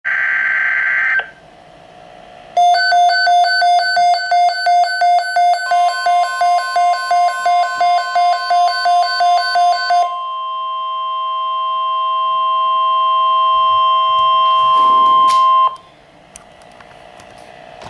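Emergency Alert System signals off a weather radio: the end of a warbling data burst, then a run of rapid electronic alert beeps, about three a second, until about 10 seconds in. Overlapping them and running on alone is the steady tone of the NOAA Weather Radio warning alarm, which cuts off about 16 seconds in.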